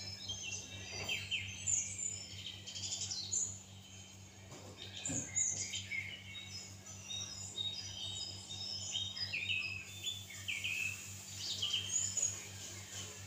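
Several small birds chirping and calling in many short, overlapping chirps, over a steady low hum.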